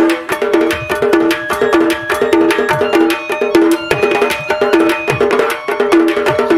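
Instrumental interlude of Sambalpuri danda folk music: hand drums and sharp wood-block-like strokes keep a quick, even rhythm under a short melodic figure that repeats over and over.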